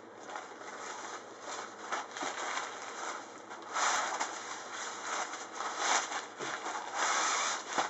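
Plastic wrapping crinkling and rustling as a rolled-up delta kite is unwrapped and its cover sleeve pulled off. It comes in several louder bursts, the loudest near the end.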